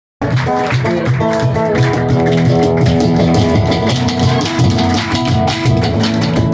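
Live acoustic band music with no singing yet: an acoustic guitar playing chords over a bombo legüero beaten with sticks and a cajón keeping the rhythm. The music starts abruptly right at the beginning.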